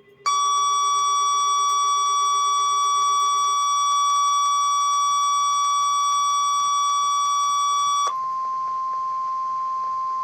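NOAA Weather Radio warning alarm tone, the steady 1050 Hz alert that switches on weather receivers ahead of the weekly test message. It is a loud, steady beep that starts abruptly. About eight seconds in it turns slightly quieter and purer.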